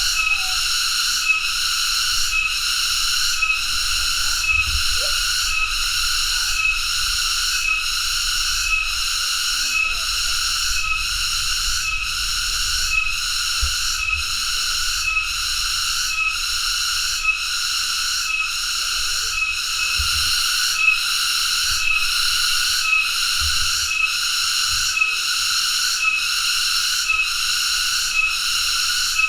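Cicada singing: a continuous high, buzzing drone that pulses evenly about twice a second.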